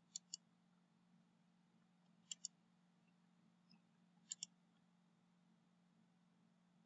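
Computer mouse clicking three times, each click a quick pair of sharp ticks, about two seconds apart, over a faint steady low hum.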